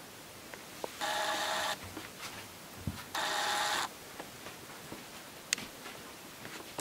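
Two short rasping scrapes, each under a second and a couple of seconds apart, with a few light knocks and clicks in between.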